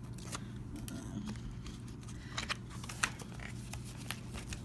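Paper pages of a spiral-bound planner being turned by hand: scattered soft rustles and light clicks, over a low steady hum.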